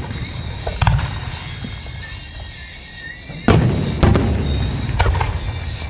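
Aerial firework shells bursting overhead: one boom about a second in, then three more in quick succession from about three and a half seconds in, each trailing off in a low rumble.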